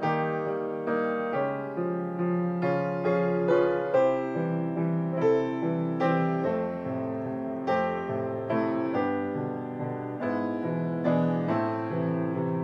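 Solo piano music, notes and chords struck about once or twice a second and left to ring.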